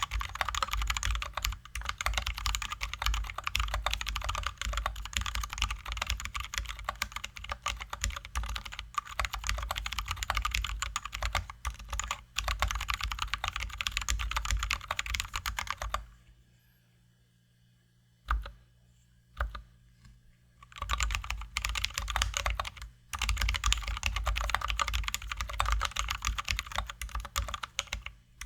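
Typing on a Drop ALT high-profile mechanical keyboard with lubed, filmed Zealios V2 67g tactile switches and XDA keycaps: a dense, continuous run of keystrokes. Just past the middle it stops for about five seconds, broken by only a couple of single key presses, then the typing resumes.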